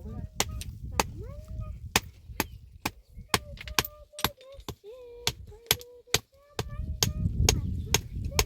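Repeated sharp knocks, about two to three a second, as of tools striking wood or earth in steady work.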